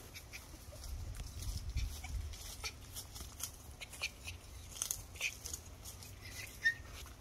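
Faint outdoor ambience: scattered short scratchy ticks, with a low rumble that swells about a second in and fades by two and a half seconds.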